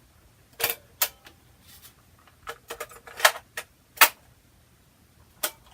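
A string of about ten sharp, irregular plastic-and-metal clicks and clacks from handling the 1970 Toshiba KT 20 P portable cassette recorder, the loudest about halfway through.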